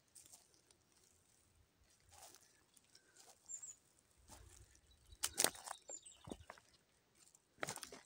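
Irregular soft footsteps crunching on dry leaf litter and loose stones, the loudest steps about five seconds in and again near the end, with two faint, high bird chirps between them.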